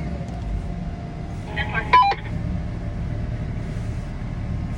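A heavy machine's engine running steadily with a low rumble. About two seconds in, a short high beep-like tone sounds over it, together with a brief snatch of voice.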